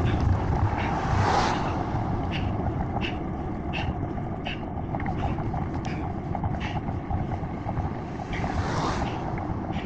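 Wind rumbling on the microphone of a camera on a moving bicycle in the rain, with the hiss of cars on the wet road swelling twice as they pass, about a second in and near the end. Light clicks repeat about every 0.7 seconds throughout.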